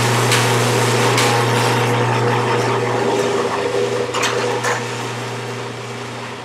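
Genie Genius TracDrive GG-1950 garage door opener running, its motor driving the plastic drive tape to lower the sectional door, a steady hum with a few light clicks and rattles.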